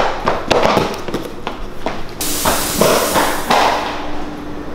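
A quick, irregular run of thumps and taps, like hurried footsteps on a tile floor, with a hiss over them from about two seconds in. A faint steady hum starts about halfway and carries on.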